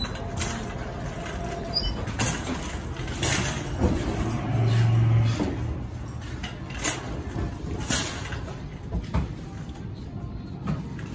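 Wire shopping cart rolling and rattling over concrete and into the store, with scattered clanks as it goes, and a brief low hum about four to five seconds in.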